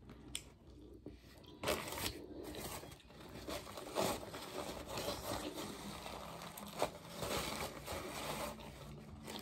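Paper sandwich wrapper rustling and crinkling as it is handled and pulled, starting about a second and a half in.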